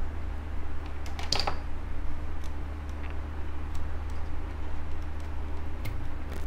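A few light clicks and knocks as a digital multimeter is handled on a workbench, heard over a steady low electrical hum.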